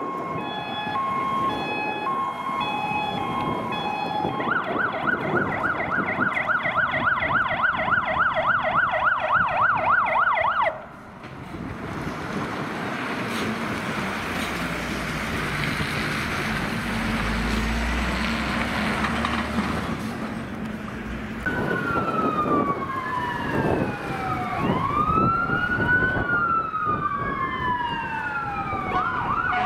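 Fire engine sirens on an emergency run. Steady horn notes stepping between pitches give way to a fast yelp siren, which stops abruptly about 11 s in. A truck's engine and tyres then pass with no siren. From about 22 s, several wail sirens rise and fall, overlapping, and a fast yelp starts again at the very end.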